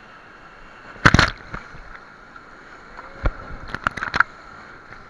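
Whitewater rapids rushing steadily around a paddled raft. Water hits the raft and camera in sharp splashes: a loud one about a second in, another just past three seconds, and a quick run of them near the end.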